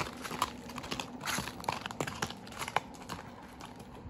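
Horse hooves walking over a track covered in dry fallen leaves: irregular crunching and crackling of the leaves with the dull knocks of the steps.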